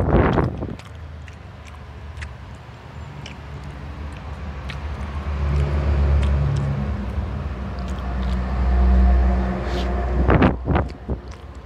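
A motor vehicle's engine hum, low and steady in pitch, swelling twice over about six seconds, with light clicks throughout and short noisy bursts at the start and about ten seconds in.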